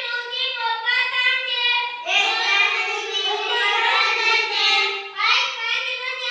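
A child's voice chanting a multiplication table in a sing-song recitation, drawing out each line in long held notes.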